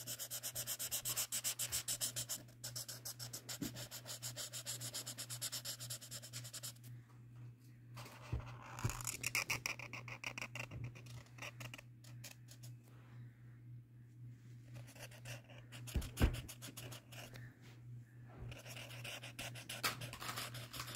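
Felt-tip marker squeaking and scratching on sketchbook paper in quick, repeated colouring strokes, pausing briefly twice. A steady low hum runs underneath.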